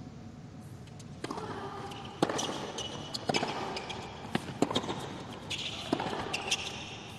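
A tennis serve and rally on a hard court: sharp racket strikes on the ball and ball bounces, about one a second.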